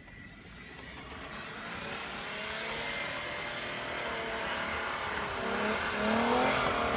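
Car stuck in snow, its engine revving and drive wheels spinning, growing steadily louder. From about four seconds in, a whine starts to waver up and down in pitch.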